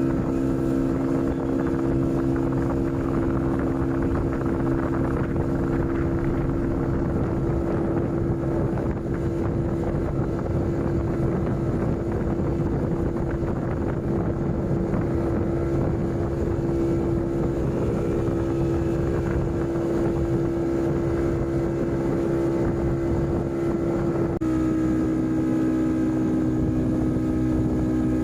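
Motorboat engine running at steady speed, its note holding constant, with wind noise on the microphone. The engine note shifts abruptly to a slightly different pitch near the end.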